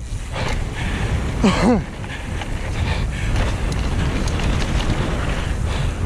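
Wind buffeting an action camera's microphone and mountain-bike tyres rumbling over a wet dirt trail at speed, a steady rough noise heaviest in the low end. A short yell cuts through about a second and a half in.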